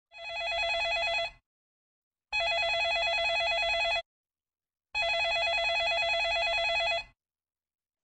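Telephone ringing three times, each ring a rapid electronic warble lasting about one and a half to two seconds, with short silent gaps between rings.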